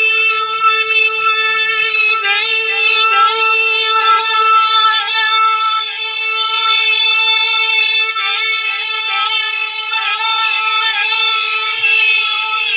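A man's voice reciting the Quran in a high, melodic tajweed style, holding long notes that waver in quick ornamental turns.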